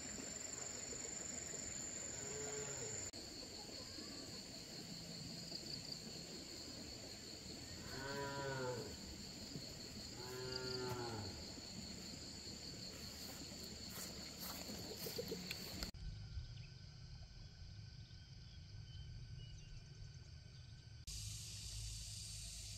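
Cattle mooing: one faint moo, then two louder moos a couple of seconds apart.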